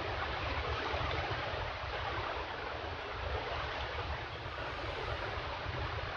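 Steady rushing noise with an uneven low rumble underneath, unchanging throughout.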